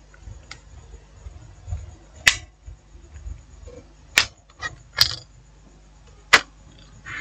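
Sharp plastic clicks and snaps, four louder ones a second or two apart with a few smaller ones between, as the clips of a Tecno Pop 5P's plastic mid-frame are pried loose and the frame is lifted off the phone.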